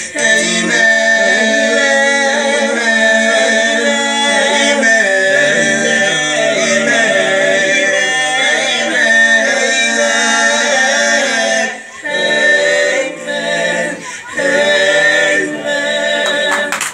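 Group of young male voices singing a cappella in harmony through microphones, a held low note under the melody. The singing breaks off briefly about twelve and fourteen seconds in.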